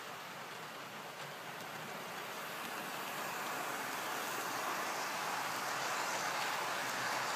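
OO gauge model Class 66 diesel locomotive and its container wagons running along the track, a steady rolling rush that grows louder from about two seconds in as the train comes close.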